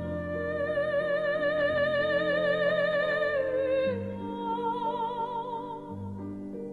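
Slow background music: long held melody notes with vibrato over sustained low chords, the harmony changing about four seconds in and again near the end.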